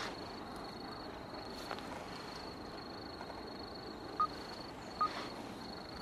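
Wetland ambience: an insect's high, steady trill that breaks off briefly every second or so, with three short bird calls about a second apart in the last couple of seconds.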